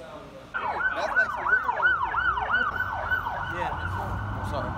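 Emergency vehicle siren in fast yelp, its pitch sweeping up and down about three times a second, starting suddenly about half a second in and settling into a steadier high tone near the end, over low traffic rumble.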